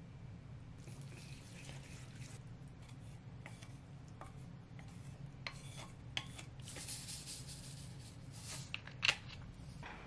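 Wooden chopsticks tossing rice noodles in a thick red chili sauce in a ceramic bowl: soft wet squishing and rubbing, with light clicks of the chopsticks against the bowl, the sharpest near the end.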